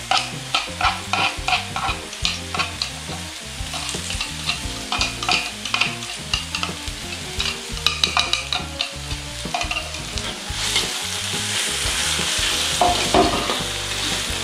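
Chopped onion sizzling in hot oil while a spatula stirs it, scraping and tapping against the pan in quick repeated strokes. About ten seconds in, the sizzle swells into a louder, steadier hiss.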